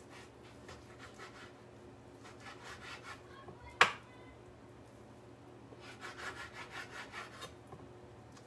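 Kitchen knife sawing through raw bacon on a wooden cutting board, cutting it into lardons: runs of quick back-and-forth strokes with the blade rasping on the board, and one sharp knock a little before four seconds in.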